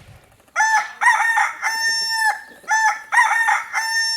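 A rooster crowing twice, each crow a broken rise ending in a long held note.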